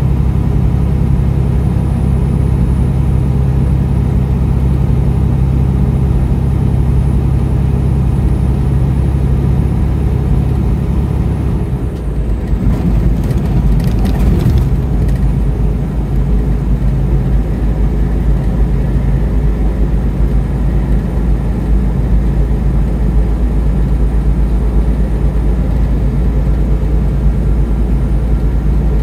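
Steady engine and road noise of a vehicle driving on an interstate highway. About twelve seconds in, the low drone shifts pitch and a brief rush of noise passes.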